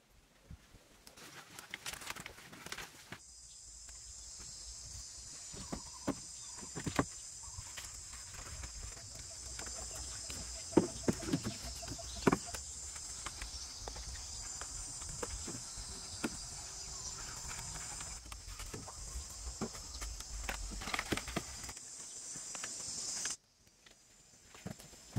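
Steady high insect drone with scattered knocks and taps of wooden poles being handled and fitted into a frame. The drone cuts off abruptly near the end.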